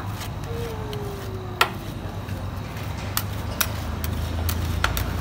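Steel spatulas chopping and scraping ice cream mix on the frozen metal plate of a Thai rolled ice cream pan. The blades give sharp clacks against the metal: a loud one about a second and a half in, then several more in quick succession near the end, over a low steady hum.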